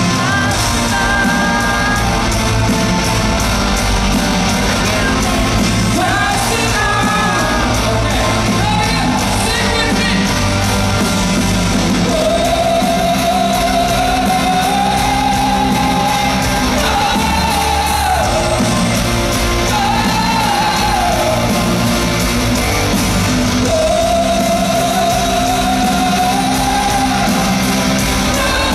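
Live rock band performing in an arena, heard from the crowd: a male lead singer holding long sung notes over guitars, bass and drums, with the big hall's echo.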